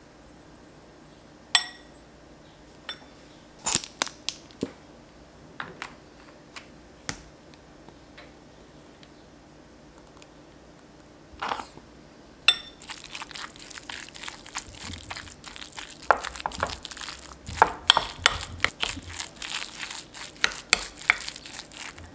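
Metal spoon clinking a few times against a glass bowl, then from about 13 s in mashing and stirring canned tuna with mayonnaise in the bowl: a dense, continuous run of scraping and clinking.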